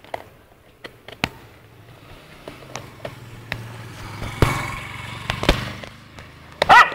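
Sharp clicks, knocks and rattles as a black wire-mesh bicycle basket is jostled, with rustling while a dog pushes its head into the basket after food. Near the end there is a brief high-pitched squeal.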